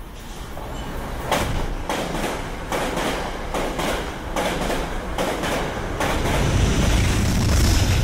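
Metro-North commuter train passing close by. A run of sharp clacks from the wheels over the rails comes from about a second in, and a deep rumble builds and is loudest near the end.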